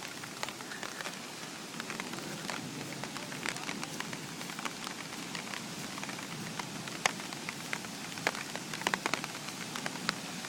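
Steady rain falling, with many sharp drops striking an umbrella held over the phone.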